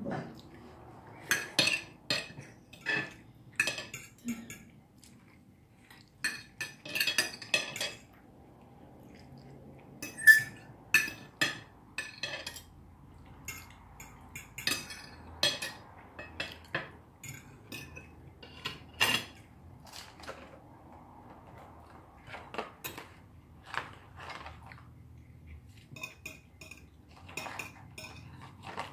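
Knives and forks clinking and scraping on dinner plates as people eat: irregular sharp clinks, often several in quick succession, with the loudest about ten seconds in.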